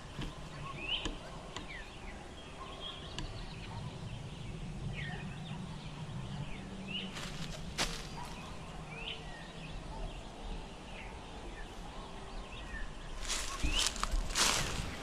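Wild birds chirping, with short rising and falling calls scattered throughout. A few footsteps come around the middle and a louder run of steps near the end, over a low hum in the first half.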